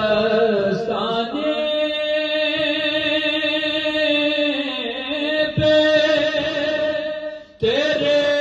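A man sings a naat into a microphone, drawing out long, steady held notes in a chant-like melody. The voice breaks off for a moment near the end and starts again.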